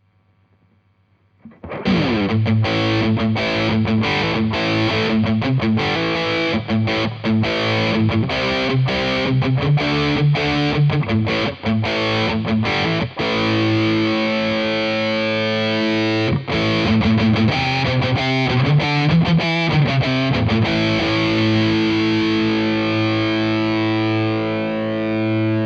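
Fender Stratocaster electric guitar played with distortion through a pedalboard into a Fender Hot Rod Deluxe III tube amp: busy rhythmic chords. Faint amp hum before the playing starts, and the last few seconds end on a held, ringing chord.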